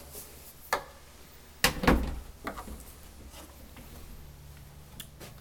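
A closet door being shut: a light click, then a heavier thump about two seconds in, followed by a couple of soft knocks.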